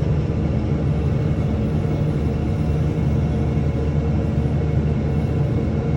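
Vehicle engine running steadily under way, with a constant low rumble of engine and road noise.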